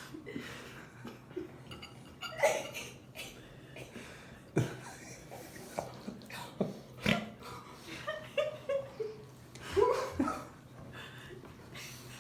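A dog eating, with scattered sharp clicks and short chewing sounds, and soft human laughter now and then, including a quick run of short laughs about two-thirds of the way through.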